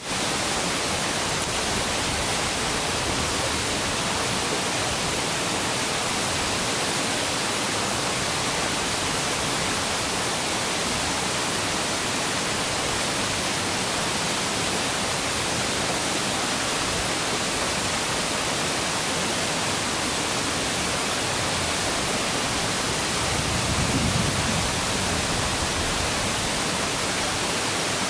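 Steady rushing of a rocky forest river, an even hiss with no breaks. A short, low, dull sound comes about four seconds before the end.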